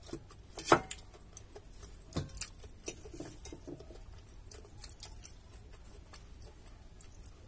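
Eating rice by hand from a stainless steel plate: scattered light clicks and taps of fingers against the steel, with one sharp clink about a second in and a few more a couple of seconds later.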